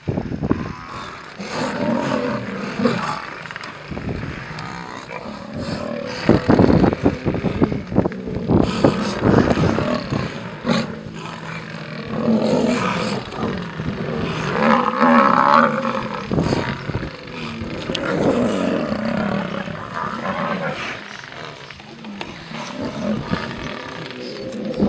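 African lionesses growling and snarling in repeated loud outbursts, the aggressive threat calls of lions confronting a buffalo herd.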